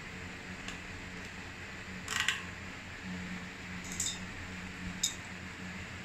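Metal clinks as the sprockets and lockring tool of an 8-speed Shimano cassette are fitted onto a bicycle freehub. There is a quick cluster of clinks about two seconds in, then single clinks around four and five seconds, over a faint steady hum.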